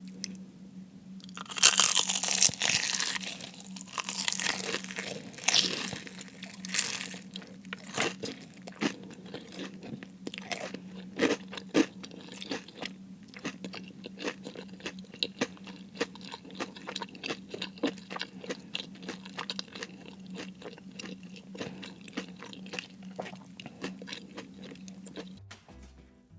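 Close-miked biting into crispy fried food: a loud burst of crunching starts about a second and a half in, then settles into chewing with many separate crisp crunches. It cuts off abruptly just before the end.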